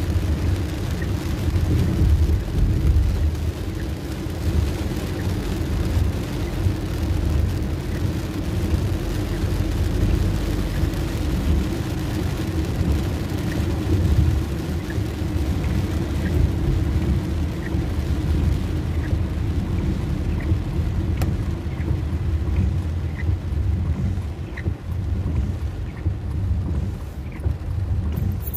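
Cabin noise of a car driving in heavy rain: a steady low rumble of engine and tyres on the wet road, with the hiss of rain on the car.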